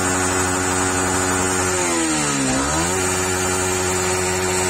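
Yamaha R15 V3's 155 cc single-cylinder engine idling steadily. Its pitch dips about two seconds in and comes back up a second later.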